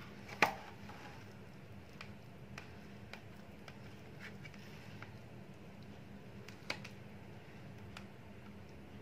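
A knife cutting set kalakand in a steel tin, with faint ticks and taps of the blade. There is a sharp click about half a second in and another near seven seconds.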